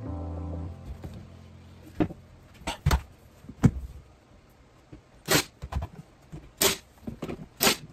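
Background music cuts off within the first second, then about seven sharp knocks at uneven spacing, from woodworking on the cabinets. The last three knocks are the loudest and brightest.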